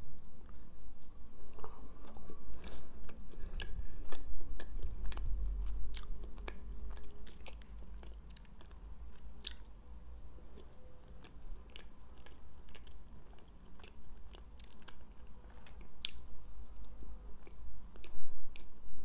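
Close-up chewing and biting of a soft Kinder Milk-Slice chocolate sponge bar with milk-cream filling, full of small wet mouth clicks. The chewing is louder in the first half and softer after that.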